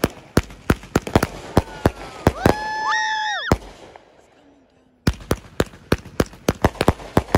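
Consumer aerial fireworks going off: a rapid run of sharp bangs and pops, with a steady whistling tone that lasts about a second, about two and a half seconds in. After a brief lull, another run of bangs starts.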